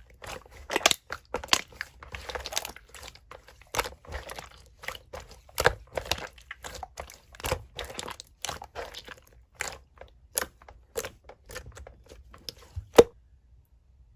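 Clear slime being squished and pressed by hand, giving a run of sticky clicks and small pops at irregular spacing. The loudest pop comes about 13 seconds in, and the sounds stop after it.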